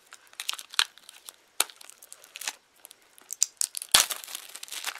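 Plastic shrink-wrap being torn and peeled off a CD case, crinkling and crackling irregularly, the loudest crackle about four seconds in.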